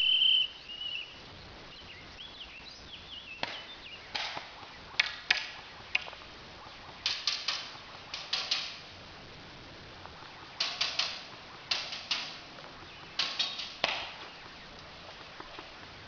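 Airsoft guns firing: sharp snapping shots, some single and some in quick bursts of a few rounds, coming in scattered groups every second or so. A brief high steady tone sounds at the very start.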